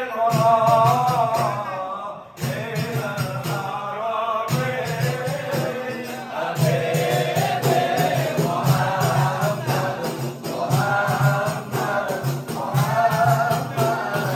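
A group of men singing an Arabic devotional song together, over a steady beat on hand frame drums (rebana).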